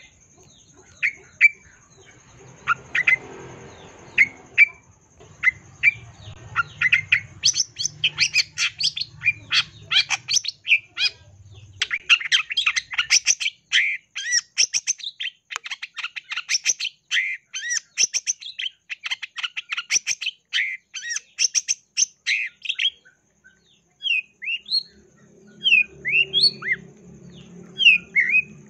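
Long-tailed shrike (cendet) singing a fast, varied song of chirps and whistled notes, filled with mimicked calls. It starts with spaced notes, breaks into a dense rapid run in the middle, then gives spaced gliding whistles near the end.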